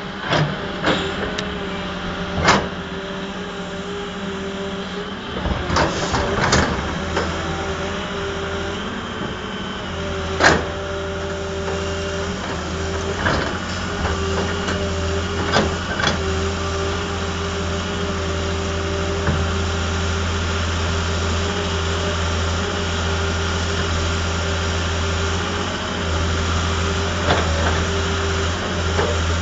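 Heavy machine's engine running steadily, with occasional sharp knocks and clanks over the hum; the engine's low hum grows stronger about ten seconds in.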